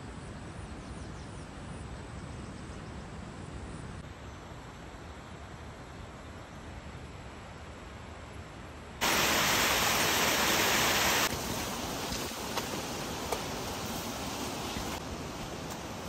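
Outdoor ambient noise: a steady rushing hiss with no voice or music. It jumps abruptly to a much louder hiss about nine seconds in and drops back about two seconds later.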